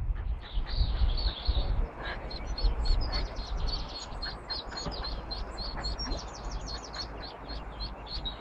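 Ducklings peeping, a fast run of short high peeps at about four a second, with a low rumble in the first couple of seconds.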